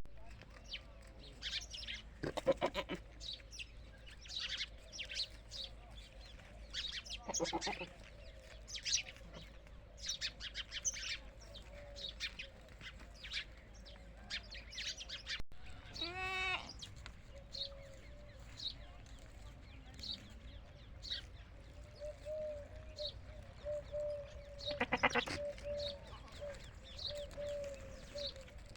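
Desi goats bleating four times, several seconds apart, over many short bird chirps throughout.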